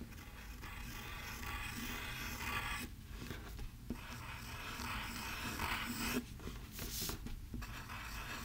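Graphite pencil scratching across paper in a run of drawing strokes, in stretches broken by brief pauses.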